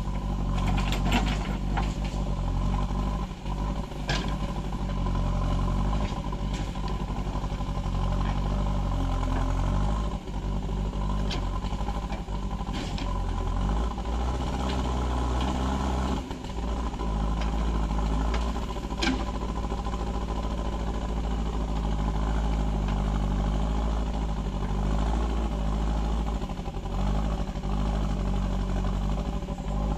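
JCB 3DX backhoe loader's diesel engine running under hydraulic load as it digs and loads soil, its engine speed rising and falling now and then. A few sharp knocks stand out over it.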